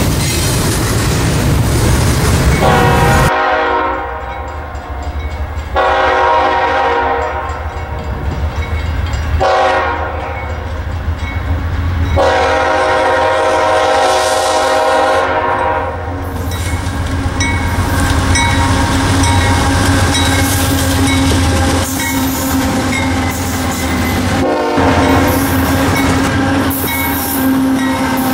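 For the first few seconds, the wheels of a passing double-stack intermodal train rumble and clatter over the rails. Then a CSX freight locomotive's air horn sounds four long blasts as the train approaches a grade crossing, with the diesel engine rumbling underneath. A further horn blast comes near the end.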